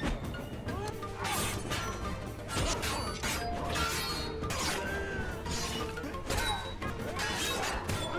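Film fight-scene soundtrack: a string of blade swishes, hits and crashes over background music.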